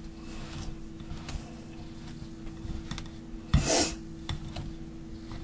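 Metal pastry blender scraping and cutting through a crumbly streusel of cold butter, flour and sugar in a glass bowl, in repeated short rasping strokes. One louder scrape comes about three and a half seconds in.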